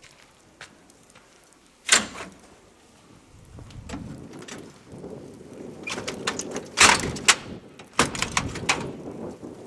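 A series of sharp knocks and clatters: a single one about two seconds in, then a quick cluster from about six to nine seconds, over a low rumble.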